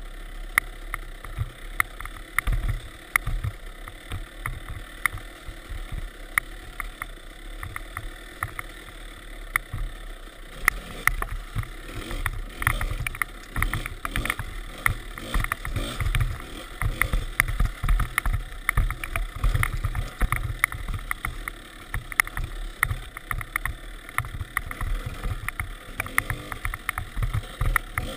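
Kawasaki KDX 200 single-cylinder two-stroke dirt bike engine running while riding over a snowy trail, with many short sharp knocks and rattles, more frequent from about ten seconds in.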